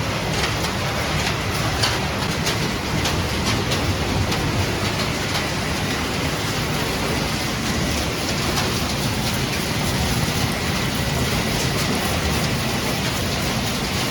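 Refrigerator recycling line machinery running: a steady, dense din with many small clicks and rattles throughout, like shredded material clattering through the equipment.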